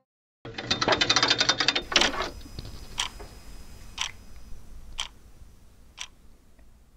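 Clock-ticking sound effect: a fast run of ticks like a clock being wound or its hands spinning, for about two seconds, then single ticks about once a second, each a little quieter.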